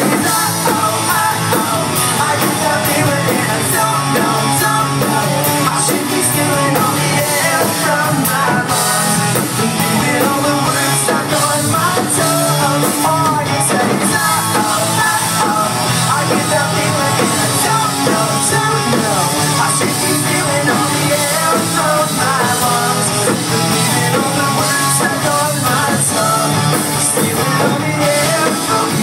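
Live rock band playing electric guitars, bass guitar and drums at a steady loud level, with a voice singing over the band.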